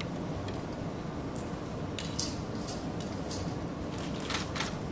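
Steady hum of a large hall, with a handful of short, sharp clicks from about two seconds in, the loudest a close pair near the end.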